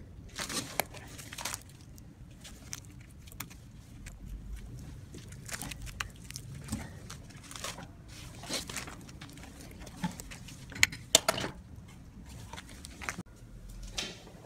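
Scattered handling noises: irregular short clicks, knocks and rustles, two sharper knocks close together about eleven seconds in, over a low steady hum.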